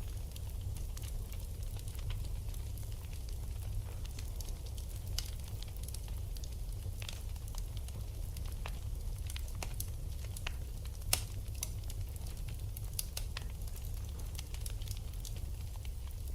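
Wood fire burning in a fireplace, crackling with scattered sharp pops over a low steady rumble; one pop about two-thirds of the way through stands out louder than the rest.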